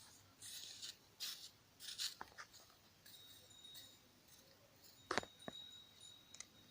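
Faint handling sounds from small parts and wires on a workbench: soft rustles and scrapes, with a few light clicks, the sharpest about five seconds in. A faint steady high whine runs through the second half.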